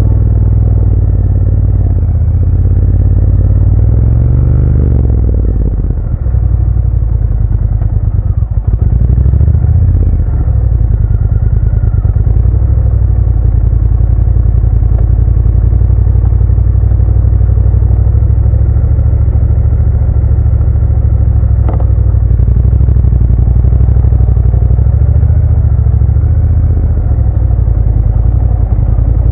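Motorcycle running under way on a dirt track, the engine steady with clattering from the loose surface; it eases off briefly about six seconds in, then picks up again.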